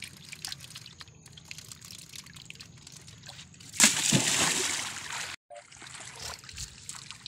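Shallow water trickling and sloshing around a man handling an old truck tyre, then a loud splash about four seconds in as the tyre hits the water, lasting a second or so before it stops suddenly.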